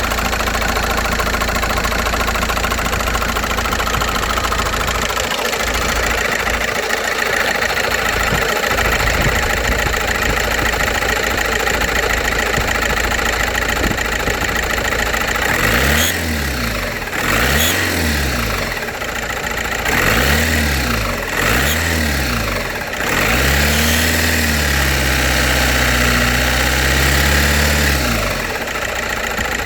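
Volkswagen Passat B5.5 1.9 TDI PD130 four-cylinder diesel idling with a loud ticking, then revved in four short blips and held at raised revs for about five seconds before dropping back to idle. The ticking began after the engine stood a month without oil; the owner finds the lifters and cam look okay and cannot say what causes it.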